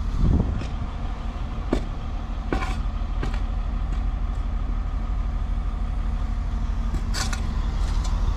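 Septic pump truck's engine idling steadily, with a few short sharp clicks over it.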